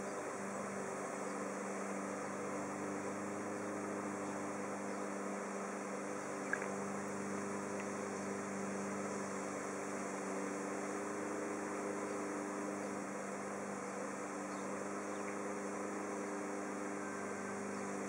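Honeybee swarm buzzing: a steady, even hum.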